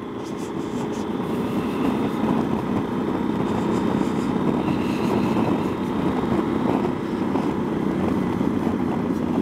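Yamaha XT1200Z Super Tenere's 1200 cc parallel-twin engine running under way, mixed with wind noise, as picked up by a microphone inside the rider's helmet. It builds over the first couple of seconds, then holds steady.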